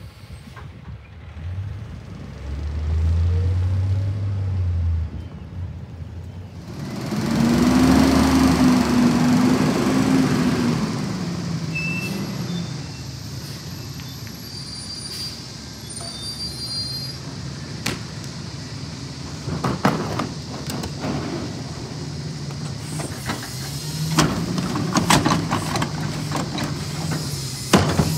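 Rear-loader garbage truck engine revving up under load, loudest a few seconds in, as it drives the hydraulic packer to compact the load. Later the engine runs steadily under a series of sharp knocks and clatters as a trash cart is handled at the hopper.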